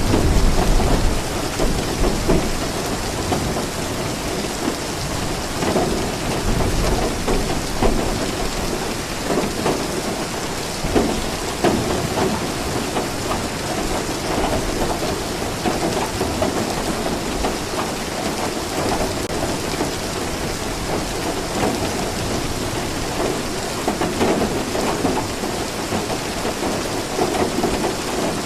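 Steady rain falling, with a low rumble of thunder that is loudest in the first second or so.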